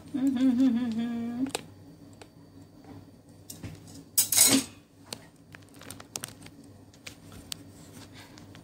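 A woman's voice makes one drawn-out wordless sound for about a second and a half. Then a kitchen utensil clinks and scrapes in a stainless-steel bowl of ingredients in scattered small ticks, with a short loud rustling noise about four seconds in.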